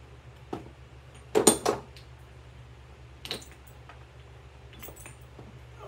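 Small household objects knocked over, a quick clatter of hard knocks about a second and a half in, with a few lighter clicks of things being handled before and after.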